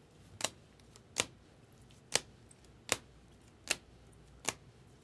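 Rigid plastic card holders clicking against each other as cards are flipped through one at a time, six sharp clacks about one every 0.8 seconds.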